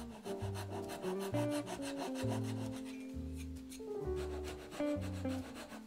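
Japanese flush-cut saw cutting a protruding wooden pin flush with a box side, with rapid, even rasping strokes that stop about four seconds in. Acoustic guitar music plays underneath.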